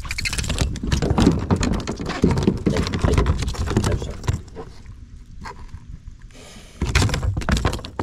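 A freshly caught bass flopping and thrashing as it is hauled aboard, knocking against the plastic kayak deck with rapid thumps and splashes. The knocking is heaviest for the first four seconds and comes again in a short burst near the end.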